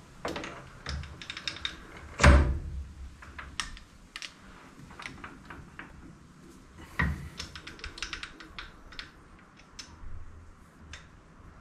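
Metal clunks and clicks from a metal lathe's tailstock and live centre being set up by hand: the tailstock slid along the bed, its handwheel and locking levers worked, with a heavy clunk about two seconds in and another about seven seconds in. The spindle is not running.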